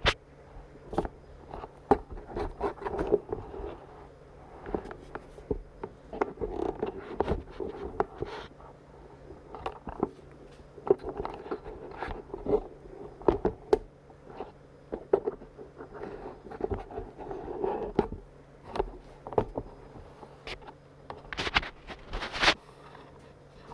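Hands handling hard parts: irregular clicks, knocks and scraping, with a faint steady hum underneath.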